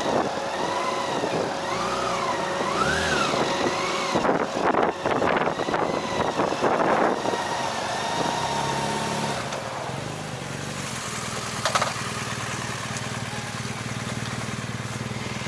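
Motorcycle engine running, settling into a steady, even idle about ten seconds in. A wavering high whine runs through the first half, with a rush of noise around five seconds in.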